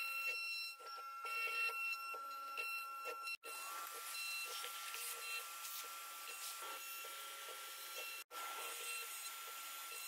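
CNC router spindle running with a steady high-pitched whine while a small bit cuts slots into walnut. The sound cuts out briefly twice.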